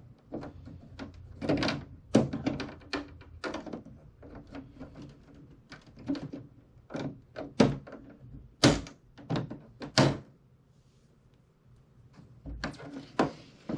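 Irregular knocks and thunks of hard plastic as the new dehumidifier is handled and moved, over a dozen of them, some loud, with a short lull near the end.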